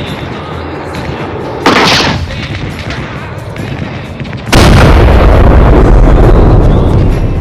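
Gunfire-style sound effects over a steady background: a short sharp blast about a second and a half in, then a much louder, deep booming blast that rumbles on for about three seconds before fading.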